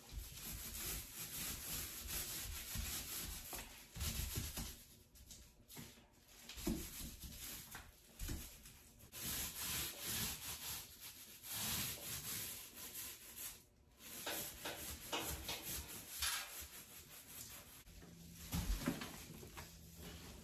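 Paint being stroked onto wood: an applicator rubbing across the surface in repeated strokes of about a second each, with short pauses between them.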